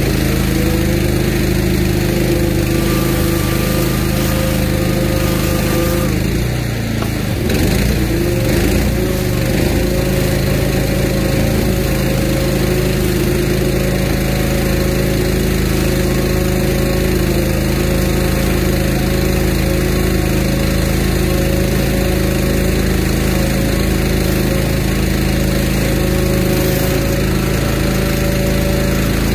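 Pressure washer's Honda GX390 single-cylinder engine running steadily under load, driving its newly fitted pump, with water spraying from a rotary surface cleaner onto concrete. The level dips briefly about six seconds in.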